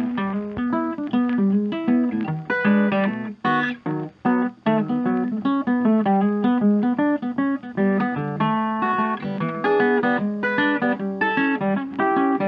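Background music of quickly plucked acoustic guitar notes, playing without pause.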